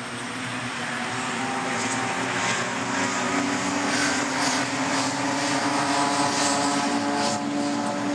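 A pack of racing cars passing along the track, several engines running at once with overlapping notes, growing louder over the first few seconds as the cars come by.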